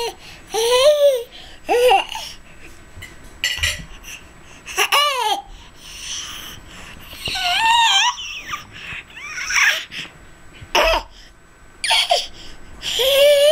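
A baby's high-pitched babbling and squealing laughs, in short bursts every second or two, each with a pitch that swoops up and down.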